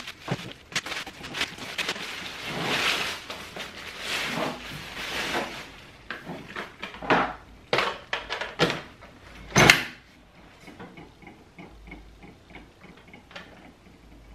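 Plastic wrapping rustled off Shark Rocket stick vacuum parts, then plastic knocks and clicks as the wand and handle are fitted together. The loudest click comes a little under ten seconds in.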